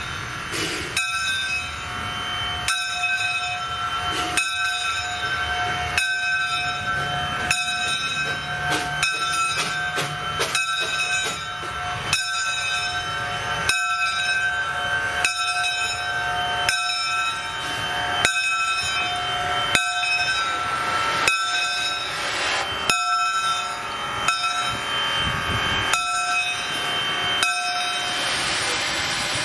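Bell of a two-foot gauge steam locomotive ringing steadily, about one stroke every second and a half, as the locomotive draws its train slowly into the station and stops. Low running noise sits under the first half, and a hiss of steam builds near the end.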